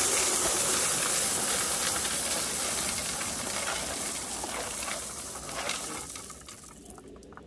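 Crushed-stone ballast pouring out of the bottom of a small hand-pushed hopper car and spreading onto the track as it rolls: a steady rushing rattle of gravel that fades away over the last couple of seconds.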